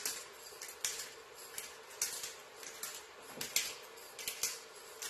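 Twist-top pepper grinder grinding black peppercorns: short gritty crunching strokes, about two a second and unevenly spaced, as the two halves are twisted back and forth.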